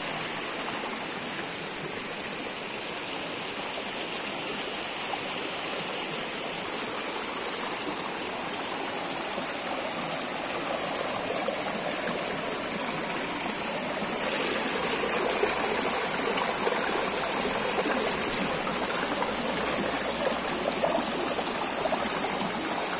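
Mountain stream running over rocks: a steady rush of water that grows a little louder about halfway through.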